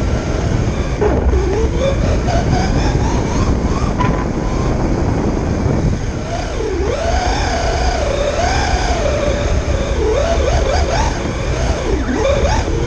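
Electric drive motor of a radio-controlled Tamiya G6-01 truck on a 2S LiPo, whining as the truck is driven, its pitch climbing and dipping over and over with the throttle, with several quick dips near the end. A strong steady rushing noise from the truck's motion runs under it, picked up by the camera riding on the truck.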